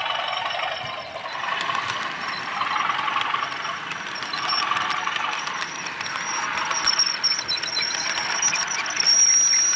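Model train running on a model railway layout: a steady high whine that grows louder toward the end, with many small clicks of wheels on the track.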